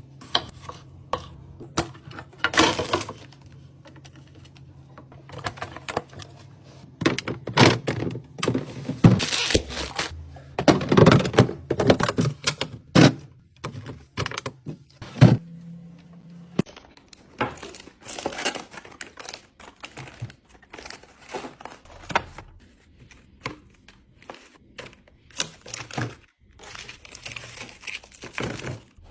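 A run of clicks, knocks and rustles of drinks and packaged snacks being handled and set into a fridge during a restock, with the background hum changing abruptly partway through.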